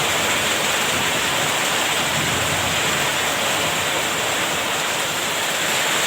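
Heavy rain pouring down in a storm, a loud, steady, even hiss.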